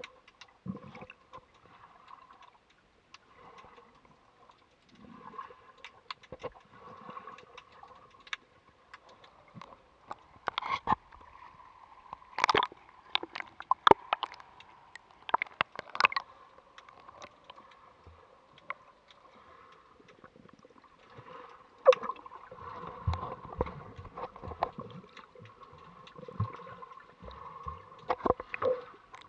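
Water sloshing and gurgling around a camera held underwater, with scattered sharp clicks and knocks under a faint steady hum. The clicks are thickest around the middle, when the camera breaks the surface, and low rumbling water noise follows in the second half.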